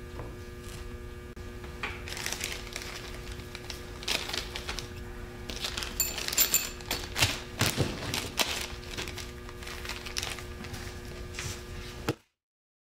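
A small clear plastic bag crinkling and rustling while two small machined metal spacer rings are picked up and slipped into it, with light clicks and taps of the rings and hands on the bench, over a steady electrical hum. The sound cuts off suddenly near the end.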